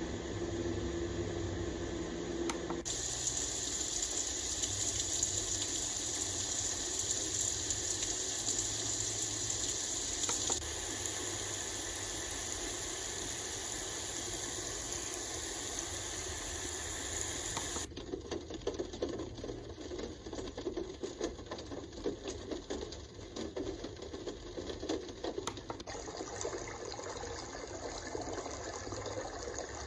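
A white noise machine playing its built-in sounds through its small speaker, switched from one sample to the next: a steady fan-like hum with a few low tones, then about three seconds in a bright, even hiss, then a little before two-thirds of the way through a rougher noise full of small irregular crackles, like running water.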